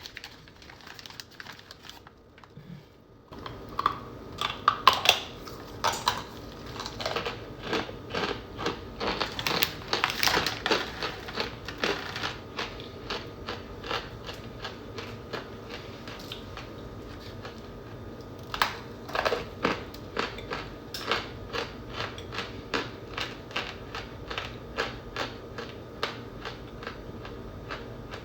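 Compressed cornstarch boulders and chunks being crunched. It begins about three seconds in with a dense run of sharp crunches, then settles into steadier crunches about two a second.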